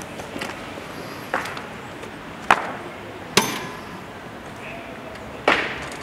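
Sharp, separate knocks of two Swiss Guards' boots and halberd shafts on stone paving as they walk up and halt. There are four knocks a second or so apart, the loudest two near the middle, with faint voices behind them.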